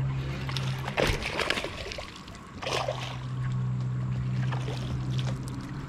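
A boat motor humming steadily, dropping out for about a second and a half, with water splashing twice as a hooked bass is brought to the boat.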